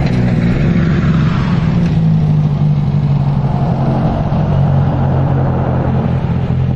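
Formula race car engine running at steady revs as the single-seater drives along the snowy track.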